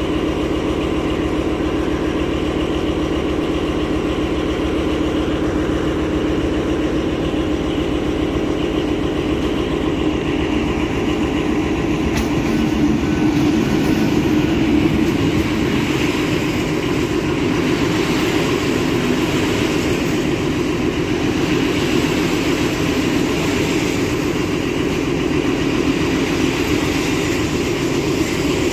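MÁV-START passenger train moving slowly alongside the platform: a steady hum of machinery with the coaches rolling by, swelling slightly about halfway through.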